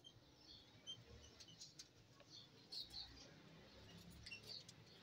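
Faint, short, high-pitched chirps from small cage birds, scattered through the quiet.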